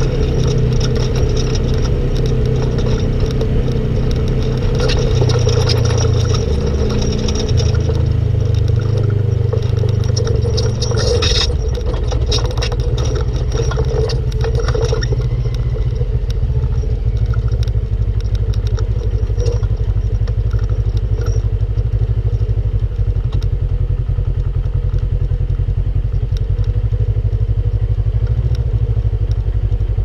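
Polaris RZR RS1 side-by-side's engine running under way, its note shifting up and down with the throttle over the first dozen seconds and then holding steady. A burst of rattling and clatter comes about eleven to fifteen seconds in.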